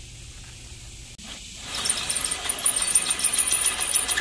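Cordless drill boring into a cast-iron boat anchor held in a vise, starting a little before halfway: a loud grinding drill sound with a thin high squeal from the bit cutting the iron and a fast run of ticks.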